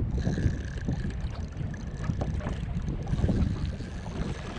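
Wind buffeting the microphone in a gusty low rumble, with choppy water slapping against a kayak hull. A faint, steady high whine runs through it from just after the start.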